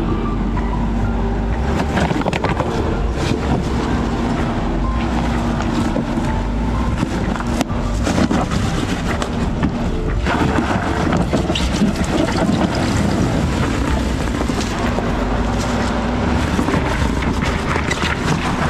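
Jeep Trailhawk crawling along an off-road trail: engine running steadily, with frequent knocks and clatters from the tires and suspension working over rough ground.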